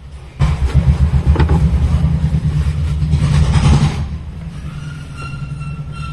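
A vehicle's low rumble that comes in suddenly about half a second in, stays loud for about three and a half seconds, then settles to a quieter steady rumble.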